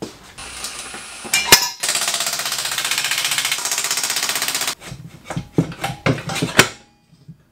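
Cordless impact wrench hammering on a bolt of a moped engine for about three seconds, a very fast steady rattle, followed by several separate metallic clanks and clicks as parts and tools are handled.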